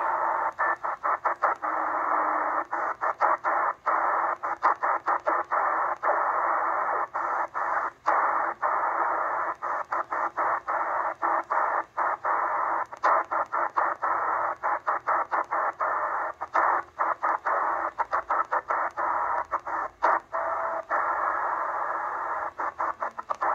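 XHDATA D808 shortwave receiver in upper-sideband mode putting out band static through its narrow SSB filter. The static is chopped by many brief dropouts as the frequency is stepped down through the 11 MHz range. A couple of short low tones come through along the way.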